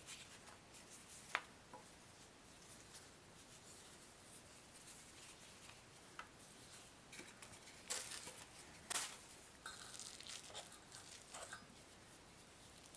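Faint handling sounds of hands filling and folding dumpling wrappers: soft rustling and pressing of dough, with a few light clicks scattered through, most of them between about eight and eleven seconds in.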